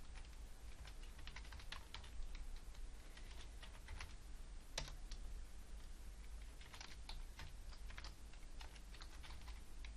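Typing on a computer keyboard: irregular runs of keystrokes, with one sharper key hit just before the middle and a short pause after it before the typing resumes.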